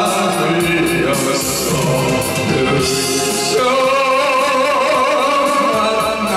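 A man singing a slow Korean trot song into a microphone over a karaoke-style backing track, his held notes wavering with vibrato.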